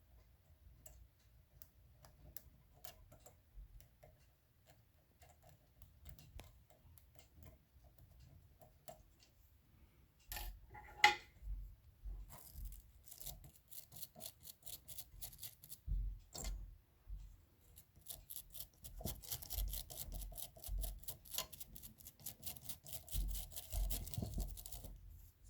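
Small metallic clicks and rattles from the 1929 Royal Model P typewriter's mechanism. They are sparse at first, with one sharper ringing clack about halfway through, then turn into denser rapid clicking with low knocks.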